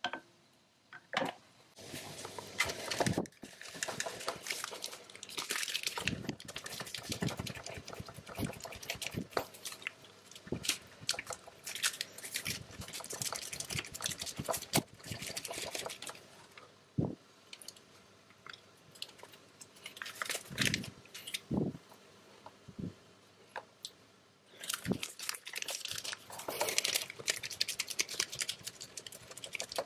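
A block of cheese being grated on a stainless-steel box grater: uneven rasping strokes, with a couple of short pauses.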